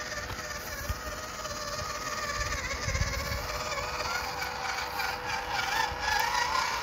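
WPL B24 KM RC truck driving slowly: its 370 motor and two-speed gearbox whine steadily, with a few low knocks about three seconds in. The whine rises in pitch in the last couple of seconds as the truck speeds up.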